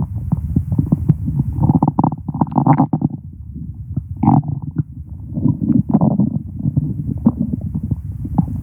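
A person's stomach growling: continuous low gurgling and rumbling dotted with many small clicks, with louder, higher-pitched gurgles about two seconds in and again just after four seconds.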